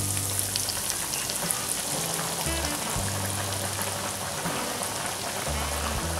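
Breaded chicken pieces deep-frying in hot oil in a wire fry basket, just lowered in: a dense, steady crackling sizzle with scattered sharp pops.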